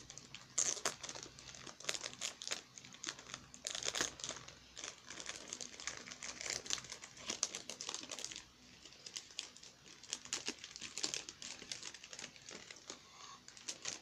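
Crinkling of a glossy plastic squishy package as hands grip and pull at it to open it: irregular crackles, bunched in short flurries.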